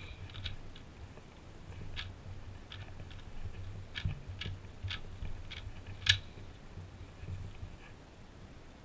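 A 2x2 Rubik's cube being turned quickly by hand during a speed solve: irregular plastic clicks and clacks of the layers snapping round, with one sharper clack about six seconds in.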